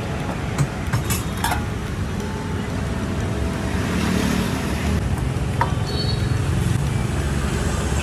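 Busy roadside ambience: a steady rumble of traffic, with a few sharp clicks and faint voices.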